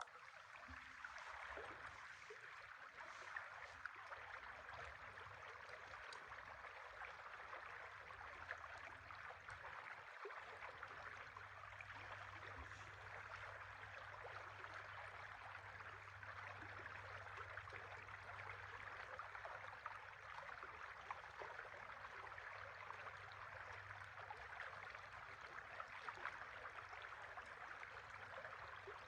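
River water running, a faint steady rush.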